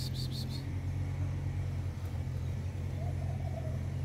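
Steady low hum of an idling motor vehicle engine. A short run of rapid high chirps at the start, and a faint wavering call about three seconds in.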